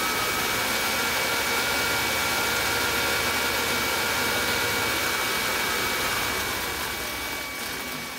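Mercedes 560SL's 5.6-litre V8 idling: a steady hiss with a faint whine, going quieter over the last two seconds. Vacuum applied to the EGR valve opens it and feeds exhaust gas back into the engine, dragging the idle down toward a rough, near-stalling run.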